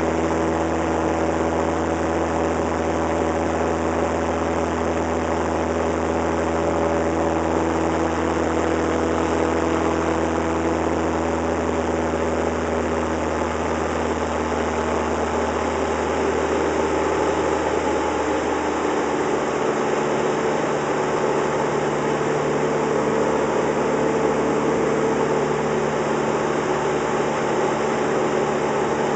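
Cessna 172's piston engine and propeller droning steadily in flight, heard inside the cabin. About two-thirds of the way through, the low hum of the drone shifts in pitch while the overall loudness stays the same.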